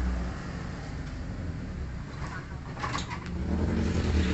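A vehicle engine idling with a steady low hum that eases off in the middle and swells again near the end. A few light knocks come about three seconds in.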